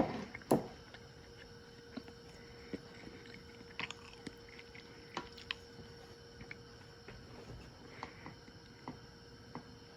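Kitchen utensils and dishes being handled: scattered light clicks and knocks, with two sharper knocks in the first half second, over a faint steady hum.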